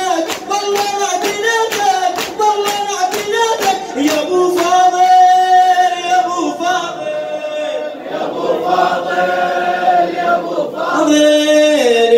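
Crowd of mourners chanting a latmiya in unison, keeping time with rhythmic chest-beating slaps about three a second. The slaps stop about four seconds in, and the chant goes on in long held notes.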